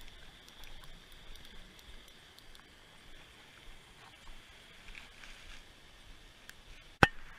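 Faint water and handling sounds as a small fish is reeled in and landed on a fishing line, with one sharp click about seven seconds in.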